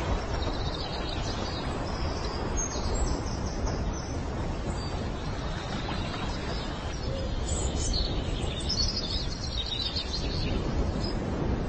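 Short runs of high-pitched bird chirps, heard about a second in, around three seconds in and again between about eight and ten seconds, over a steady low noise.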